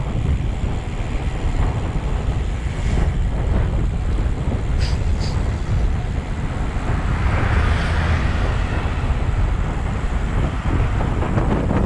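Wind buffeting the microphone of a camera on a moving road bicycle: a steady, heavy low rumble that swells briefly about eight seconds in.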